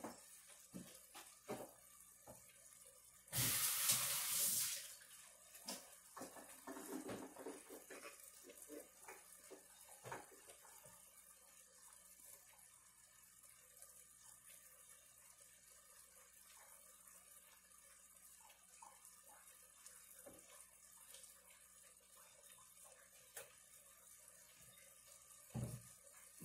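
Kitchen tap running briefly about three seconds in, followed by faint knocks and clinks of kitchenware and a dull thump near the end.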